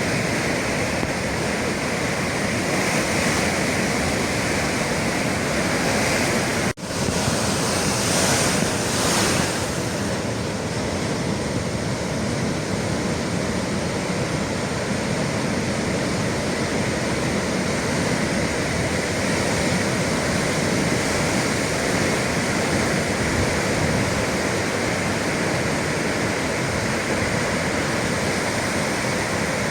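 Atlantic Ocean waves breaking and washing against the shore in a steady, continuous surge, with a momentary dropout about seven seconds in.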